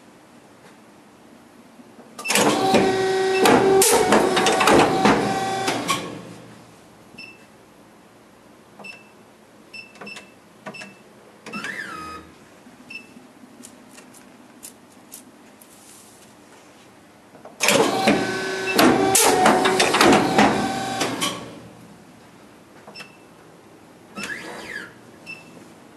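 Fullar AR520Z electric guillotine paper cutter running two cutting strokes, each a few seconds of motor and blade noise with clicks. In between come short keypad beeps as a cut size is entered, and twice a brief rising-and-falling whine as the back gauge moves into position.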